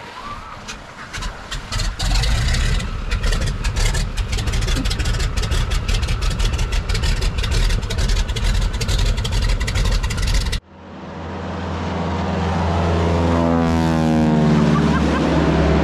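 Heavy rumbling wind noise with crackling on the microphone, then after an abrupt cut an engine running steadily, its pitch sliding down briefly near the end.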